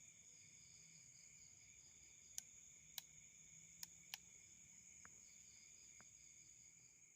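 Faint night chorus of crickets and other insects, steady high trilling with one band pulsing, broken by four sharp clicks from about two to four seconds in and two fainter ones later.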